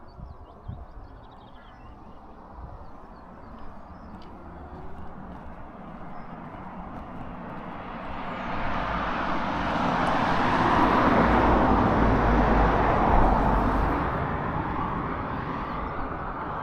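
A car passing on a road: tyre and engine noise swells over several seconds, is loudest about ten to thirteen seconds in with a low rumble, then fades away.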